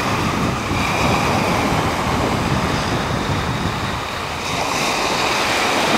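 Small waves breaking and washing up a sandy shore, a steady surf hiss that swells again about four and a half seconds in, with some wind.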